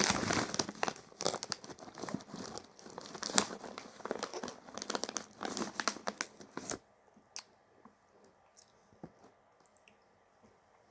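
Plastic snack packet of honey-roasted nuts crinkling and rustling as it is handled, a dense run of crackles that stops about seven seconds in, leaving only a few faint clicks.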